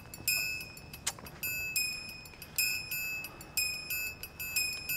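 High, chime-like notes struck one after another, about two a second, each ringing briefly and fading: light tinkling background music.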